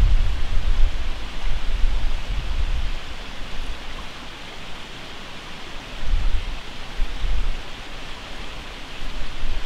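Wind buffeting the microphone in gusts: a low rumble that eases off in the middle and comes back near the end, over a steady hiss.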